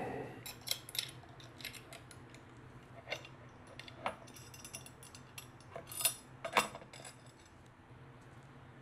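Quiet, irregular metallic clicks and taps from a camera cage's metal plate and small screws being handled and fitted onto the camera body, with a couple of sharper clicks about six seconds in.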